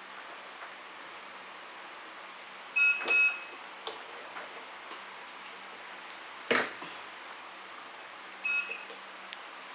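Heat press's digital controller beeping: a double beep about three seconds in and a shorter beep near the end, as its buttons are pressed. Between them comes a single sharp clunk from the press mechanism.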